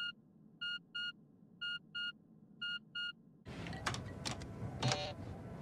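Hibernation life-function monitor beeping: one short high beep, then three pairs of beeps about a second apart. Then, about three and a half seconds in, a steady hiss with a few sharp clicks as keys are pressed on a chess computer.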